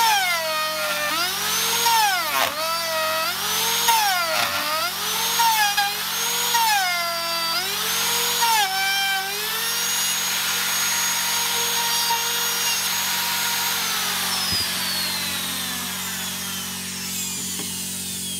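DeWalt router with a bearing-guided dovetail bit cutting a dovetail mortise into the timber: the motor whine dips and recovers about once a second as the bit bites into the wood on each pass. It then runs free at steady speed and, after about 13 seconds, slides slowly down in pitch as the switched-off motor spins down.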